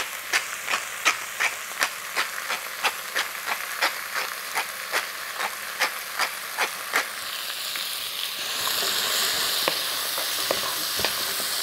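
Pepper mill being ground over a pot, a regular clicking grind about three times a second for some seven seconds. Then a wooden spoon stirs diced pumpkin and vegetables sweating in oil in the pot, with a steady sizzle.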